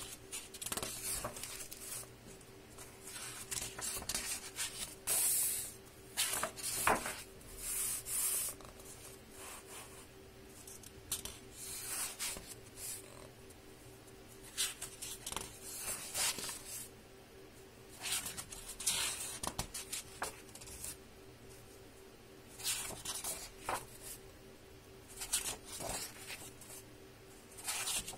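Pages of a hardcover book turned by hand: repeated dry paper rustles and swishes, some quick and some drawn out, over a faint steady hum.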